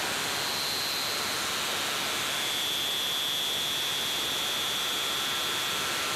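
Live electronic sound: a steady hiss of noise with faint, thin high tones held over it, one of which shifts slightly lower in pitch about two seconds in.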